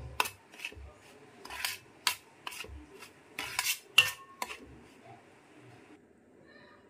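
Metal spoon scraping and clinking against a stainless steel pan while stirring dry rice flour and spices. Irregular scrapes and taps, the loudest knock about four seconds in, stopping near the end.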